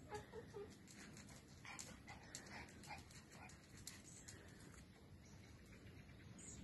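Faint sounds of a small dog: a few short, soft whines just after the start, then scattered light clicks and brief snuffling noises.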